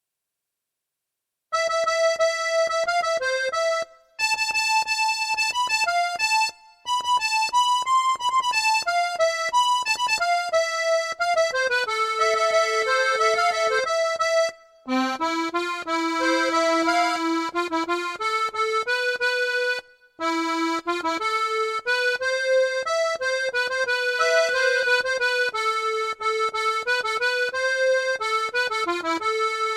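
Accordion playing a song melody over a steady pulsing bass accompaniment, starting about a second and a half in, with short breaks between phrases.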